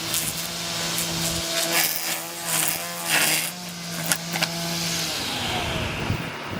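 String trimmer running at a steady pitch, with short noisy bursts as the line cuts, then switched off about five seconds in and winding down with a falling whine.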